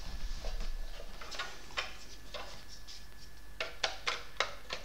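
Light clicks and taps from handling a small computer box and its parts, a few scattered at first, then a quick run of about five sharper clicks near the end.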